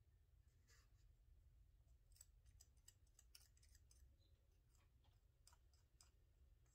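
Near silence: faint, scattered small clicks of hands handling a lure and small parts, over a low steady hum.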